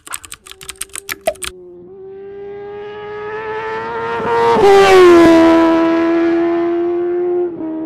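Intro sound effect of a vehicle engine. Its note climbs slowly and swells to its loudest with a whoosh about halfway, where the pitch drops, then holds steady until it cuts off near the end. A few quick clicks come at the start.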